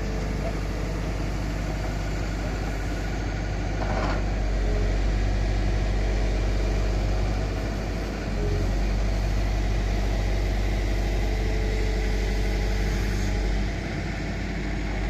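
Caterpillar M313D wheeled excavator's diesel engine running while its hydraulics work the boom, arm and swing. The engine note steps up about four seconds in as load comes on, dips briefly a little past eight seconds, and drops again near the end.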